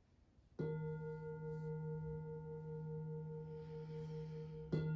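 Metal singing bowl struck twice with a mallet, about four seconds apart. Each strike rings on as a low hum with higher overtones, one of them wavering. The bowl marks the end of the final relaxation.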